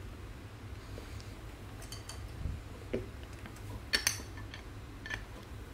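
Light plastic clicks and taps of a trading card in a rigid clear plastic holder being handled and set into a display stand, a few separate clicks with the sharpest about four seconds in, over a low steady hum.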